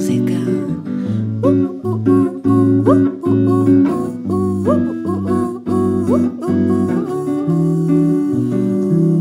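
Instrumental passage of a song: guitar notes sliding upward about once a second over a low, steady bass line, with no singing.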